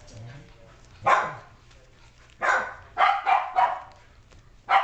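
An adult dog barking: one bark about a second in, then a quick run of four sharp barks and another near the end.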